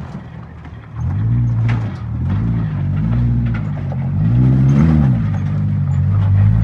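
Toyota Tacoma pickup engine revving up and down under load as the truck crawls up a rock ledge. The engine note swells and falls several times, highest about five seconds in, over scattered clicks and knocks of rock under the tyres.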